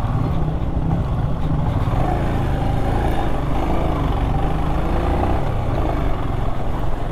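Motorcycle engine running as the bike is ridden, a steady low rumble whose pitch wavers up and down in the middle.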